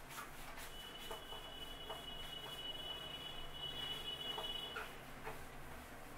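Whiteboard duster rubbing across a whiteboard in repeated wiping strokes. A thin, steady high whine runs through the middle four seconds.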